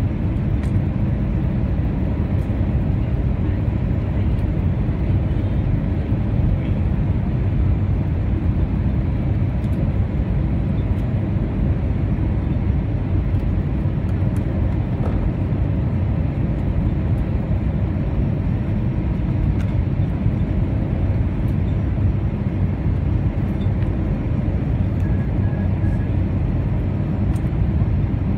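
Steady cabin noise inside an Airbus A320 on final approach: an even, low rush of airflow and jet engine noise that holds constant throughout.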